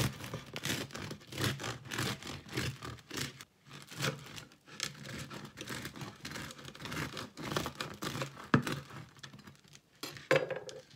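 Knife sawing through the crisp crust of a freshly baked no-knead country loaf: a quick, irregular run of crunching, crackling and scraping strokes, with one sharper knock about eight seconds in.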